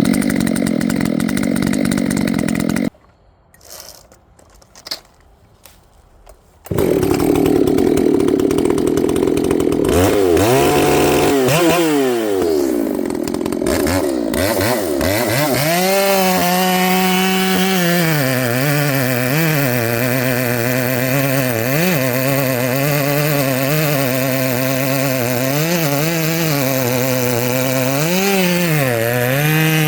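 Ported Echo CS-590 two-stroke chainsaw running hard and cutting through a large red oak log, its engine pitch dipping repeatedly as the chain loads up in the cut. The sound drops away for a few seconds about three seconds in, and around ten seconds in the engine revs up and down before settling back into the cut.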